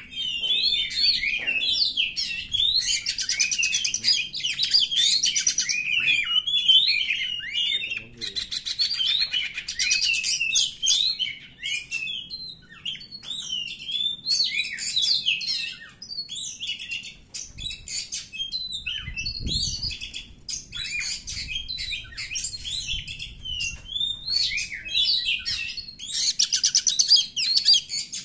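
Oriental magpie-robin singing a fast, continuous, varied song of whistles and chirps, broken three times by rapid rattling trills. This is the fired-up, aggressive song that keepers call 'kacer emosi'.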